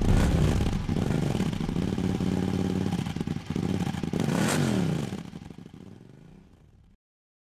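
Engine revving sound effect, its pitch rising and falling, fading out about five seconds in, with silence near the end.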